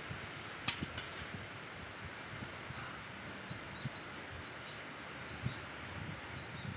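Steady wind noise, with one sharp crack a little under a second in: a single air-rifle shot at whistling ducks. A few faint high chirps follow.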